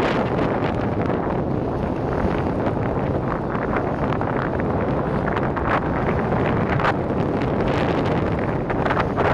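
Wind buffeting the microphone, a steady rushing noise with frequent short gusts, over choppy river water splashing against a granite bridge pier.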